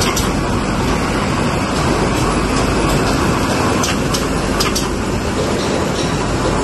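Paper coffee filter bag making machine running at production speed: a steady, dense mechanical clatter from its rollers, belts and forming stations, with a few sharp clicks about four to five seconds in.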